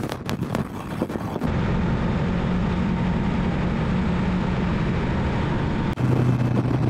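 Motorcycle cruising at speed: its engine drones steadily under wind and road noise. For about the first second and a half, wind buffets the microphone. Near the end the engine note steps down to a lower pitch.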